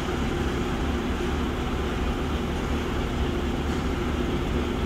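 Diesel semi-truck engine idling steadily, heard from inside a truck cab.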